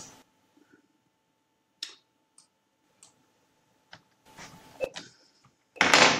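A few faint, scattered clicks of a computer mouse, then a loud, brief rush of noise near the end.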